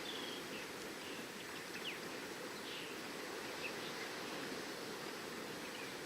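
Steady wash of ocean surf with short bird chirps scattered over it, one a quick falling whistle about two seconds in.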